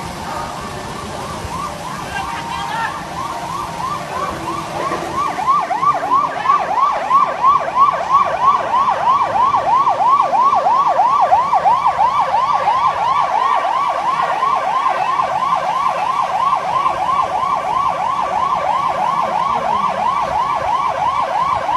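Emergency vehicle siren on a fast yelp, its pitch sweeping up and down about three times a second. It starts faint and grows much louder about five seconds in as the vehicle comes close.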